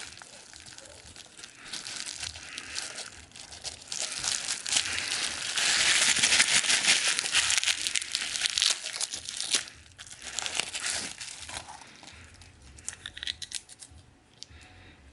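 Packaging being unwrapped by hand: dense crinkling and rustling, loudest from about four to nine and a half seconds in, then lighter, scattered rustles.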